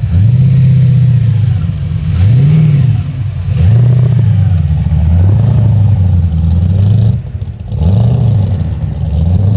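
Supercharged V8 of a Holden VK Commodore with a bonnet-mounted blower, revved hard again and again while standing: the engine note climbs and falls back several times, dropping off briefly about three-quarters through before revving up again.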